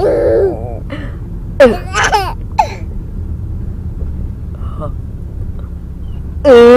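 A baby's short giggles and squeals, then near the end a woman's loud, long burp, over the low steady rumble of a car's interior.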